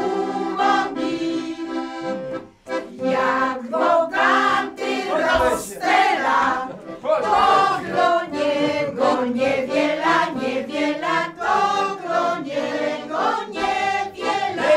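A group of women singing a Cieszyn Silesian folk song together, with an accordion accompanying them. The singing breaks briefly about two and a half seconds in.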